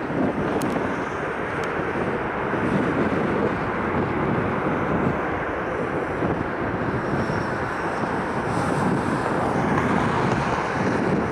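Boeing 787-8 airliner's jet engines during the landing rollout just after touchdown: a steady rushing noise.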